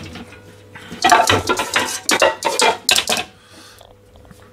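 Metal cookware clattering as a frying pan is pulled from a rack of pans and set down on a gas hob's grate. A run of clanks and knocks starts about a second in and lasts about two seconds.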